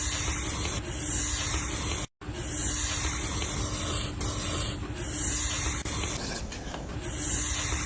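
Paint being sprayed: a steady hiss with a faint hum underneath, broken by a brief cut about two seconds in.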